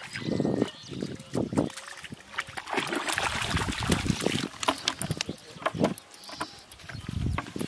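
A hooked fish thrashing and splashing at the pond surface for about two seconds in the middle, with sharp clicks and a few low thumps around it as the fish is pulled from the water on a bamboo pole line.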